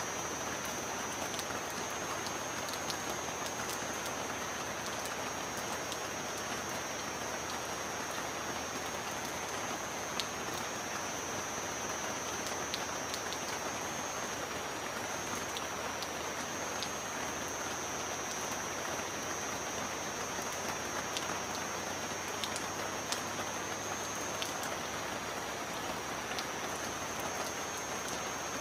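Steady heavy rain: an even hiss of rainfall with scattered sharp taps of individual drops, over a steady high-pitched tone.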